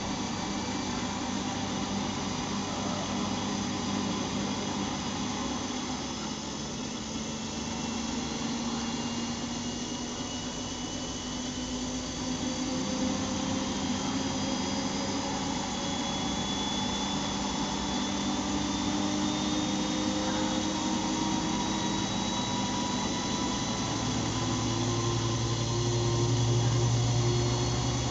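Siemens Siwamat washing machine running, its motor hum rising slowly in pitch as the drum speeds up. A deeper hum comes in and grows louder near the end.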